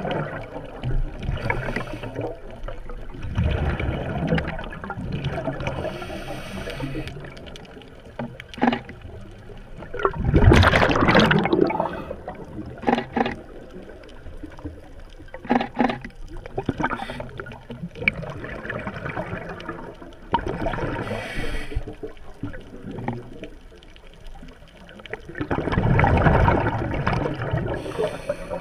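Scuba diver breathing through a regulator, heard underwater: hissing inhalations and bubbling exhalations every several seconds, the loudest bursts of bubbles near the middle and near the end. A few short clicks fall between them.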